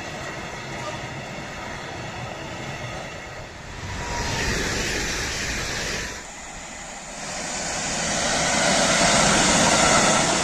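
Trains passing on an electrified main line, heard as a run of short clips with abrupt changes between them: first empty container flat wagons of a freight train rolling past, then an EN76 electric multiple unit, then an intermodal freight train whose rumble grows louder toward the end.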